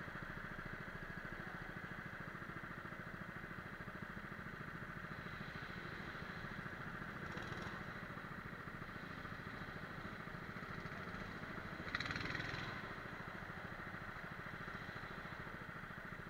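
Go-kart engine running steadily as the kart drives round the track. A brief sharp noise comes about halfway through, and a louder one, the loudest moment, a little later.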